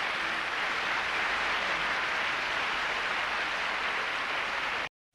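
A large audience applauding steadily, a dense even clapping that cuts off suddenly near the end.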